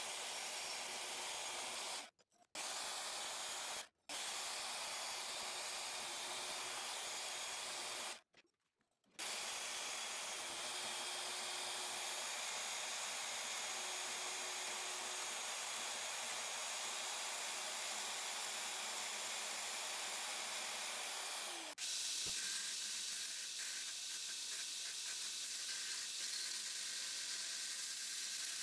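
Band saw blade cutting through a Damascus steel knife blank, a steady hiss that drops out briefly three times. About 22 s in it changes abruptly to a 2x72 belt grinder's abrasive belt grinding the steel blade's edge, a brighter, harsher hiss.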